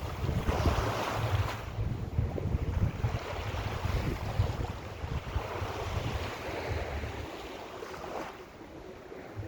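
Mediterranean sea waves breaking and washing up the beach, swelling twice and easing off near the end, with wind buffeting the microphone as a low rumble.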